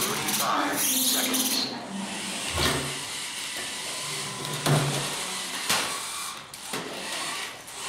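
FTC competition robots' electric drive motors whirring as the robots drive and turn on the field, with several sharp knocks and clatter as they bump game pieces.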